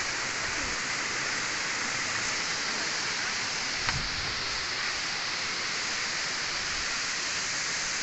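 Waterfall plunging down a high rock cliff onto boulders, a steady, even rush of falling water and spray. A single brief click sounds about four seconds in.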